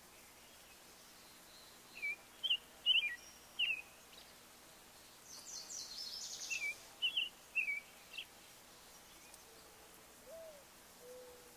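Wild birds calling: one bird gives short, sharply sliding whistled notes in two bouts, with a fast high trill between them. From about ten seconds in, a low hooting call starts, several notes with the second rising.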